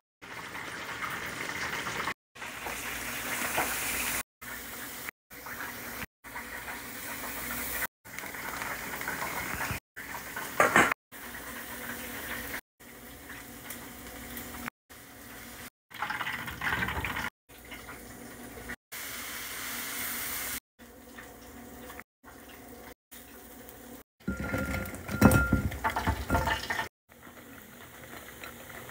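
Kitchen cooking sounds in a quick run of short clips, cut off abruptly every second or two: hissing sizzle of food cooking and running water, with a louder stretch near the end.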